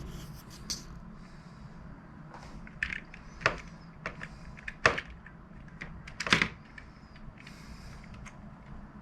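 A handful of sharp clicks and knocks, scattered and irregular, the loudest a few seconds apart, over a low steady hum.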